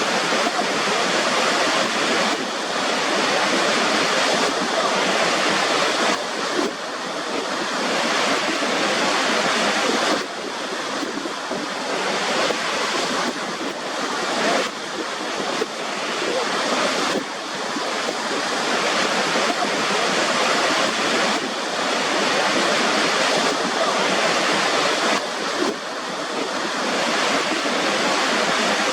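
Steady rushing water, a dense hiss that dips sharply every three to four seconds and builds back up.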